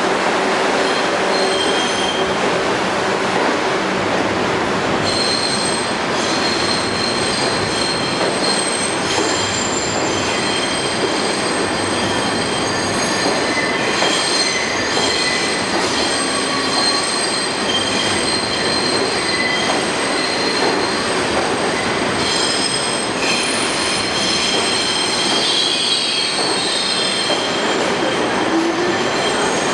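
Kawasaki R62 subway train departing, a loud steady rumble of steel wheels on rail. High-pitched wheel squeal comes in about five seconds in and carries on over the rumble.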